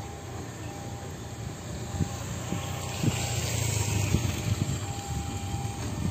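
Diesel-electric locomotive hauling a container freight train, its engine a steady low drone as it approaches, growing louder about three to four seconds in.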